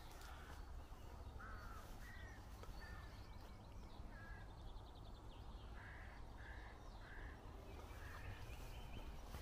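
Crows cawing: a series of short, faint calls, including a run of three about six to seven seconds in, over a faint steady low rumble.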